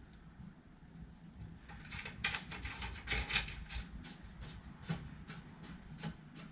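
Faint, irregular light clicks and knocks of metal parts being shifted and fitted while the flail mower's rotor is lined up with its bolt holes, starting about two seconds in.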